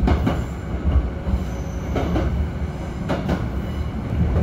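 Kintetsu 6400 series electric train running, heard from inside the carriage: a steady low rumble, with the wheels clacking over the track in quick pairs about three times.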